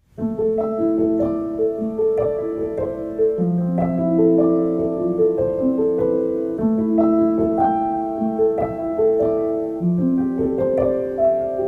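Background piano music: a slow melody of struck notes, each left to ring.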